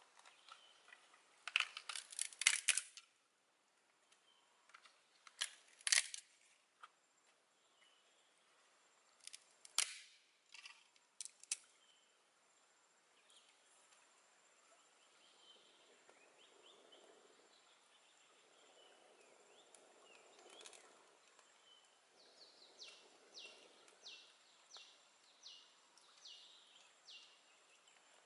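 Faint sharp snaps and cracks of sticks being handled over a small campfire, in clusters during the first dozen seconds. A soft rushing sound comes and goes in the middle, and near the end a high chirp repeats about twice a second.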